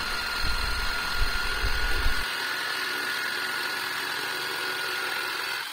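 Makita electric jigsaw running steadily with a high motor whine while its blade cuts lengthwise through a pine board. The low rattle of the blade chattering in the wood drops away a little over two seconds in, while the whine carries on.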